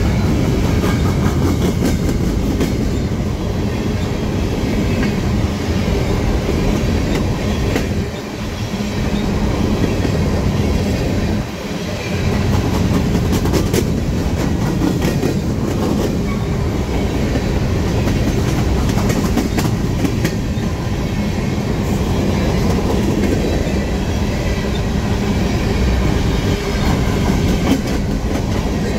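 Freight train of potash covered hopper cars rolling past close by: a steady rumble of steel wheels on rail with frequent clicks and clacks over the rail joints, dipping briefly twice.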